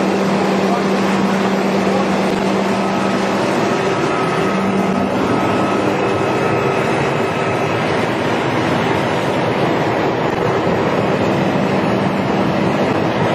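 Utility service truck's engine running steadily at close range, a constant rumble with a faint steady hum.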